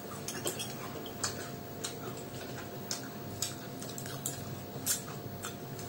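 Mouth sounds of people chewing soft fried cauliflower pakoras: irregular wet smacking clicks, two or three a second.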